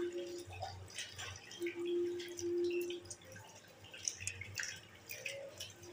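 Water from a tap splashing and dripping during hand and foot washing at a washroom sink, with a faint steady hum that comes and goes.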